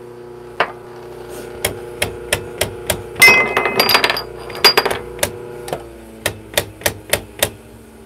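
Mahlkönig EK43 coffee grinder being knocked and tapped by hand at its spout: a string of sharp metallic knocks, with a denser rattling patch about three seconds in. Under them is a steady hum that stops about six seconds in.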